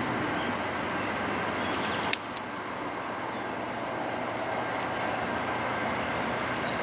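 Diesel freight locomotive approaching with its train, engine running with a steady rumble. Two sharp clicks about two seconds in.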